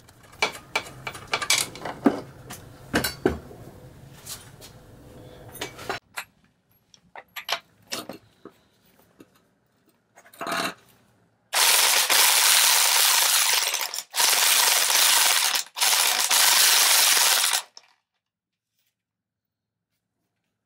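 Impact wrench spinning the top nut off a BMW E46 front strut, in three runs of about two seconds each starting about halfway in. Before that come light metallic clicks and clinks as the strut-top nuts are handled.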